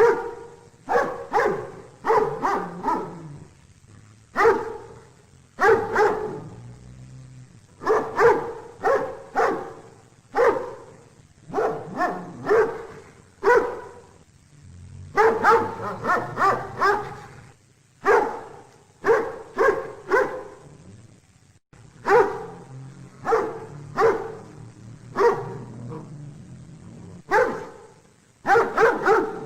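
Dog barking over and over, in quick runs of two to four barks with short pauses between.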